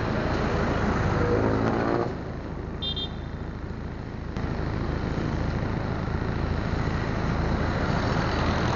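Road traffic noise: vehicle engines running and passing on the street, louder in the first two seconds, with a brief high chirp about three seconds in.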